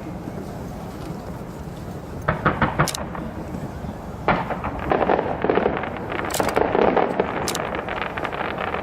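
Fireworks bursting and crackling over a steady low rumble, in a short cluster about two seconds in and a longer, louder run of crackles from about four seconds in.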